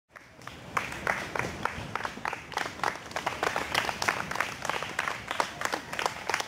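Crowd of spectators clapping: a dense, irregular patter of hand claps that starts abruptly after silence.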